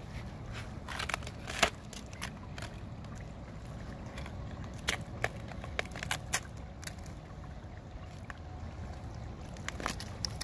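A wolfdog's front paw striking and scraping thin creek ice, giving irregular sharp cracks and clicks as it breaks through, with water sloshing under the ice.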